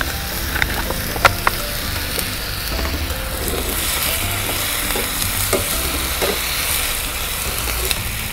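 Diced chicken breast sizzling steadily as it fries in oil in a pan, stirred with a slotted spatula that clicks sharply against the pan a few times, loudest about a second in.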